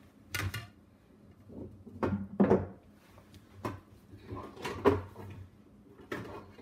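Hard plastic juicer parts being handled and set down on a plate: about five separate knocks and clatters, the loudest about two and a half seconds in and near five seconds. The juicer's motor is not running.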